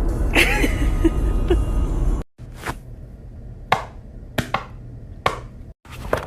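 A loud, noisy stretch, then after an abrupt cut a quiet background broken by five or six sharp clicks spaced irregularly about a second apart.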